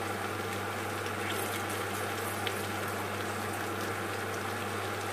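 Stir-fried carrots and beans sizzling steadily in a frying pan over a gas flame, an even hiss with a constant low hum underneath.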